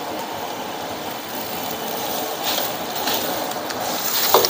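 Steady rushing roar of a lit gas wok burner, with a few short scrapes of a metal ladle against the wok.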